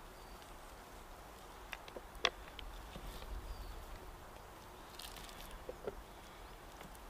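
Quiet woodland ambience: a faint steady hiss with a low wind rumble, broken by a few light snaps or clicks, the sharpest a little over two seconds in, and a couple of faint high chirps.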